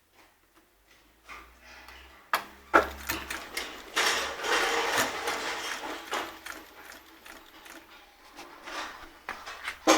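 Durkopp Adler 768-class post-bed industrial sewing machine running and stitching, a mechanical clatter that starts about a second in, with a couple of sharp clicks early in the run, and eases off near the end.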